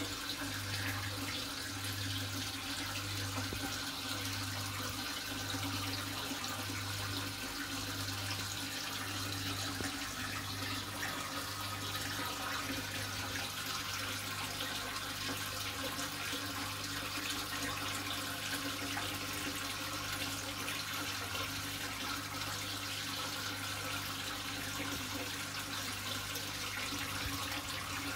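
Aquarium water running and bubbling steadily from the air stream and pumps, with a low electric hum from the equipment that throbs about once a second.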